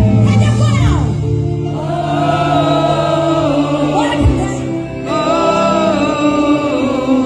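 Live gospel music: after a falling glide near the start, a lead line holds two long notes with vibrato over a steady bass.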